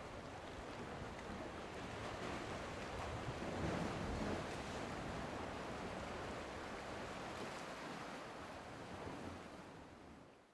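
Ocean surf: a steady wash of waves that swells about three and a half seconds in, then fades out at the very end.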